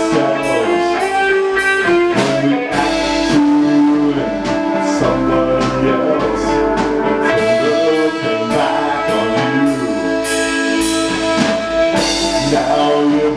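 Live rock band playing without vocals: electric guitar and bass guitar over a drum kit keeping a steady beat.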